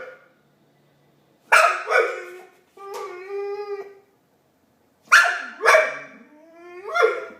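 Pit bull barking in pairs, with a drawn-out, steady howling call between them. Near the end a rising howl runs into another bark.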